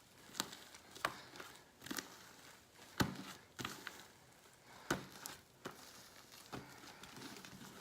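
A big handful of fluffy glue-and-shaving-cream slime being kneaded and stretched by hand, giving irregular sticky clicks and pops.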